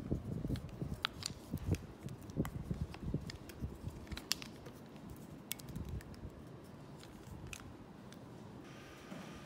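Scattered light clicks and taps with low rumbling handling noise as a mixing bowl of cream-cheese filling and a spatula are handled. The clicks thin out after about six seconds, and a faint steady hum comes in near the end.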